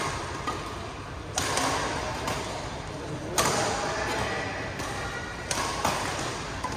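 Badminton rackets striking a shuttlecock during a rally, a sharp smack every second or two.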